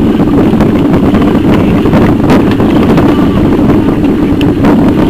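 Loud, continuous rumbling and rattling with frequent sharp knocks: a camera jolting over cobblestones, with wind buffeting the microphone.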